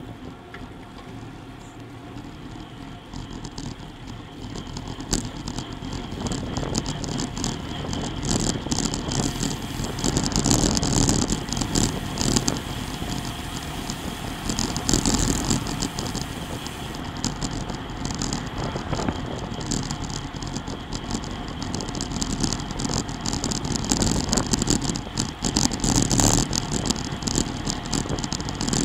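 Wind rushing over a bike-mounted camera's microphone, with tyre and road noise from a group of road bikes on asphalt, getting louder a few seconds in as the riders speed up to over 20 mph. A freewheel ticks while the rider coasts.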